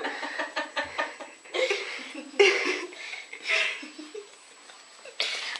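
People laughing softly in a few short, breathy bursts.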